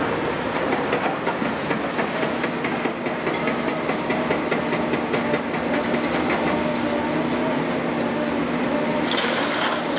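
Heavy diesel machinery running with a steady drone while a tracked excavator loads demolition rubble into a steel dump truck body, the rubble clattering in rapid knocks. A brief high squeal comes near the end.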